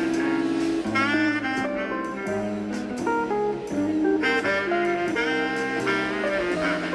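Instrumental background music: a melody line moving over held lower accompaniment notes.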